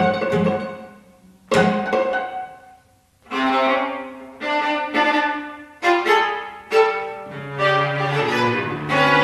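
String trio of violin, viola and cello playing contemporary chamber music: two sharp accented chords die away into brief silences, then sustained bowed notes with repeated accents follow, and a low held cello line enters in the second half.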